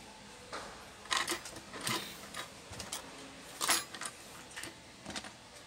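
A scatter of light, irregular clicks and small clatters, about eight of them over a few seconds, the loudest near the middle, over low room noise.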